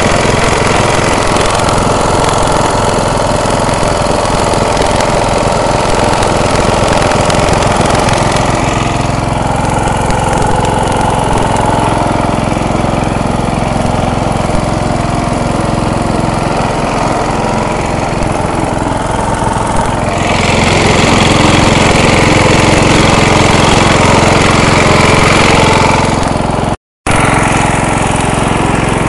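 MTD riding lawn mower's engine running steadily while the mower is driven, its tone going duller for a stretch in the middle and brightening again about two-thirds of the way through. The sound cuts out completely for an instant near the end.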